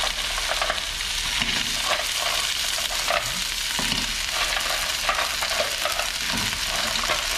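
Mussels sautéing in hot oil in a pan, sizzling steadily while being stirred.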